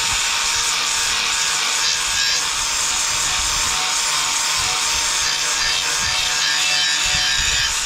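Corded angle grinder fitted as a sander running steadily against a steel potato-ridger mouldboard, a constant motor whine under the hiss of the disc scouring off surface rust and old paint.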